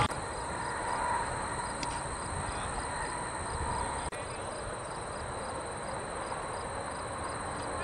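Insects trilling steadily in the background under quiet outdoor ambience.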